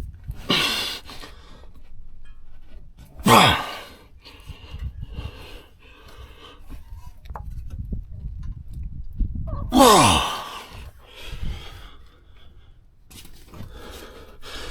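Seized belt-tensioner bolt on a Honda Odyssey being forced loose with a wrench: three loud creaking squeals that drop sharply in pitch, about half a second in, a few seconds in and near ten seconds, with lighter tool clatter between.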